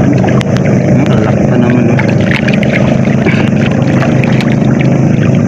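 A steady low motor drone, running without change.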